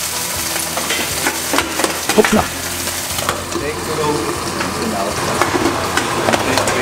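A hot frying pan sizzling, with a knock about two seconds in; the sizzle stops about a second later, giving way to a wooden spoon scraping and stirring thick, dry polenta in a steel pot.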